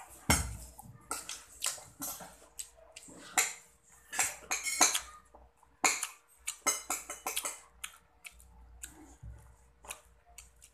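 Metal spoon clinking and scraping irregularly against a ceramic bowl of rice during a meal, with a dull thump about a quarter second in as a plastic water bottle is set down on the table.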